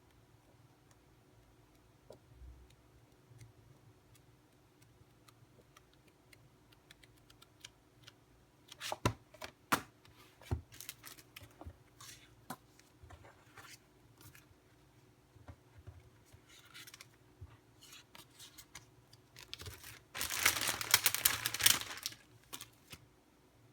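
Packaging being handled by hand: scattered clicks and short rustles, then a dense burst of rustling and tearing lasting about two seconds near the end.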